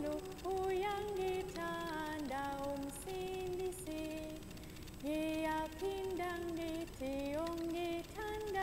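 Recorded singing of a simple children's song about Jesus' love: a slow melody of long held notes that step up and down, with a short pause a little past the middle.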